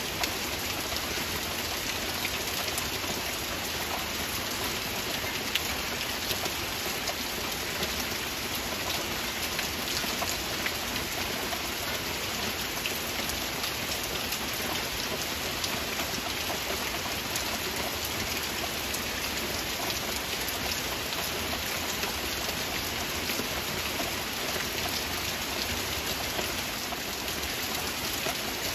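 Heavy rain falling steadily, with many individual drops heard striking close by.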